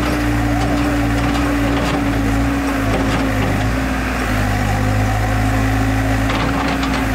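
New Holland backhoe loader's diesel engine running steadily under load as the backhoe arm works a bucket of dirt, a low drone with a steady whine on top.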